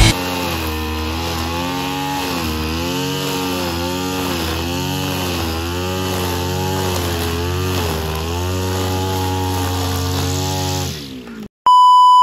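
Two-stroke brush cutter with a nylon string head running at working speed, its pitch dipping about once a second as the line bites into grass. The engine cuts off near the end, followed by a short, loud steady beep.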